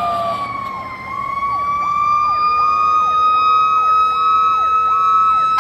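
An approaching rescue truck's sirens. One high, steady wailing tone sags slightly and then climbs back, while a second siren sweeps up, holds and falls in a fast repeating cycle, about three times every two seconds.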